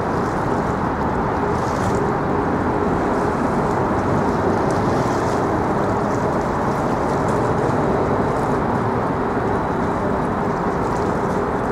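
Steady low rumble of motor noise with a constant hum, unchanging throughout.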